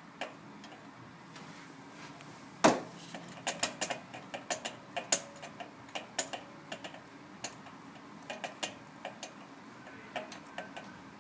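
Ratchet wrench clicking in irregular runs as it turns a spark plug, with one sharp metallic knock about three seconds in.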